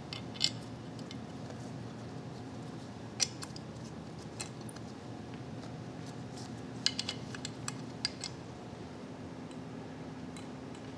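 Small metal brake parts clinking against a steel drum-brake backing plate as hardware is fitted by hand. Scattered light clicks, with a quick cluster about seven seconds in, over a steady low hum.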